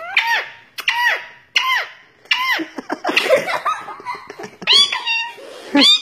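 A young girl giggling in a string of high-pitched squeals, about one a second, growing louder near the end.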